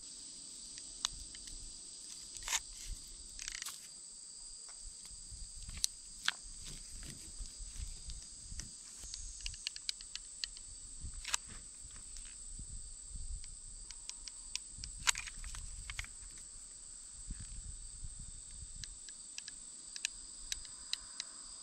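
Steady high-pitched drone of insects, with scattered light clicks and handling noises from a hot glue gun and plastic pipe fittings being worked by hand.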